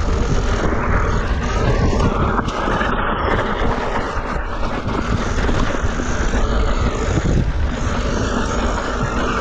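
Mountain bike ridden down a steep, loose, rocky trail with the brakes held on: continuous loud crunching of tyres over loose rock, with the bike rattling and clattering over the chunk.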